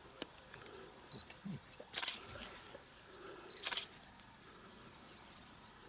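An insect chirping steadily in a high, even pulse, about five chirps a second. Two short sharp clicks cut in about two seconds in and again near the middle.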